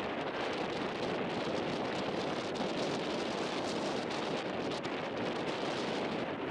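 Steady wind noise on the microphone: an even rush with no distinct events.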